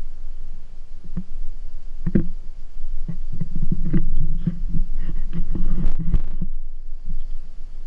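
Handling noise from the camera and its pole mount being moved: a run of knocks, clicks and rubbing, thickest between about three and six and a half seconds in.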